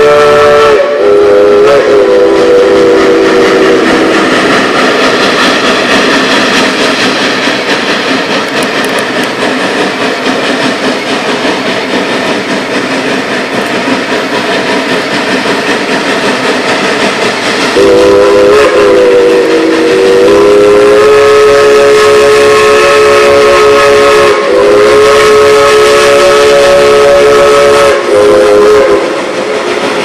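Heisler geared steam locomotive No. 6's L&N three-chime steam whistle blowing. One blast trails off in the first few seconds. A long blast starts about 18 seconds in, its pitch wavering at first, with a short break about 24 seconds in. In between, the locomotive's working and running noise.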